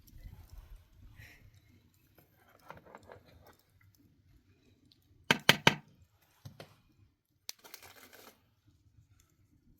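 Scattered short handling noises: faint rustling and crunching, with three quick, louder knocks or crunches about five and a half seconds in and a single sharp click a couple of seconds later.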